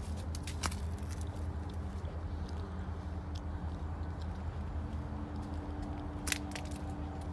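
Footsteps crunching on dry leaves and grass, irregular crisp crackles with a couple of sharper ones, over a steady low hum.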